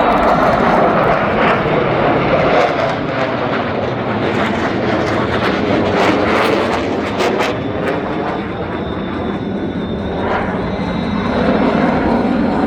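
Jet roar from Blue Angels F/A-18 Super Hornets flying past, loud and continuous. It eases off a little past the middle and swells again near the end.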